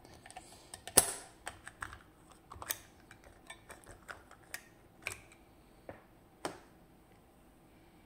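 Irregular small clicks and taps of a brass lock cylinder being handled and turned in the fingers, with the sharpest knock about a second in.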